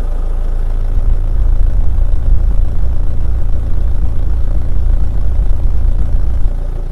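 Heavy truck engine running with a steady, deep rumble, fading out near the end.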